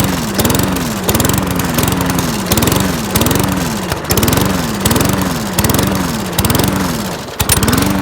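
Small lawn mower engine surging, its speed rising and falling in a regular rhythm a little under twice a second, then settling to a steady speed near the end. The engine has been over-primed and is running rich.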